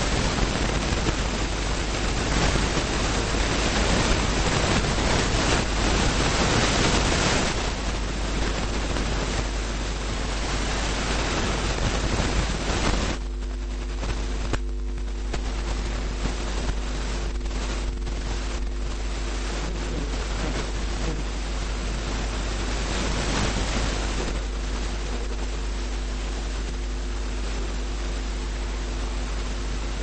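Steady hiss-like noise with a low electrical hum, louder for the first several seconds; about halfway through, a few steady low tones come in under it.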